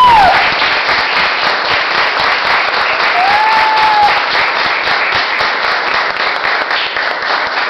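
Small group of people applauding in a room. A brief, high pitched call rises and falls over the clapping about three seconds in.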